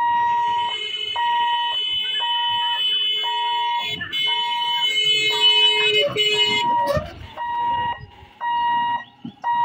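Level-crossing warning alarm beeping on and off, about one beep a second, while the boom barriers lower. A steady, higher electronic tone sounds along with the beeps and cuts off about two-thirds of the way through, leaving the beeping alone.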